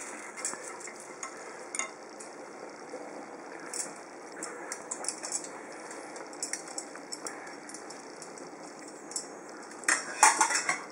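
Metal serving tongs and tableware giving scattered light clinks over a steady hiss, with a louder burst of clattering about ten seconds in.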